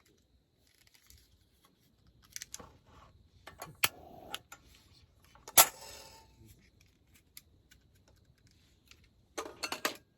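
Small objects being handled at close range: scattered light clicks and rustles, one sharper click about five and a half seconds in, and a quick run of clicks near the end.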